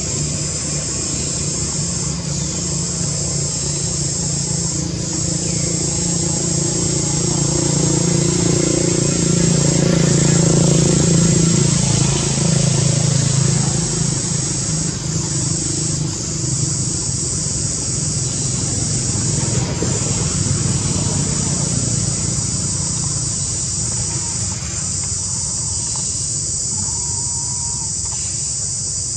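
A steady, high-pitched insect drone, broken by a few brief dips, with a low engine hum beneath it that grows louder in the middle and then fades, as a vehicle passes.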